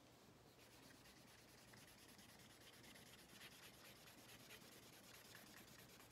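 Faint scratching of a felt-tip marker rubbed quickly back and forth on paper, colouring in an area in rapid strokes that start about half a second in.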